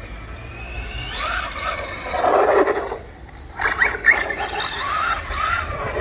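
The brushless motor of a Maverick Quantum MT Flux RC monster truck whining as the throttle is worked, its pitch rising and falling in sweeps. Tyres rasp over the ground, and a few sharp knocks come about three and a half seconds in.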